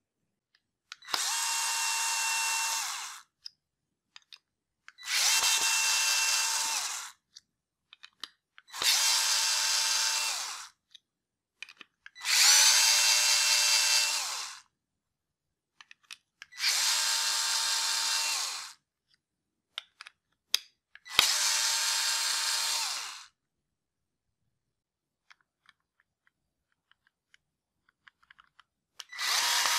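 Worx WX240 4V mini cordless electric screwdriver running in six separate bursts of about two seconds each, with a steady motor whine, backing screws out of chipboard one after another. Light clicks fall between the runs, and another run starts near the end.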